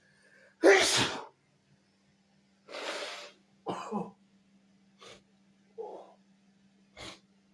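A person sneezes once, loudly, about half a second in, then sniffs and breathes through the nose in five shorter, quieter bursts.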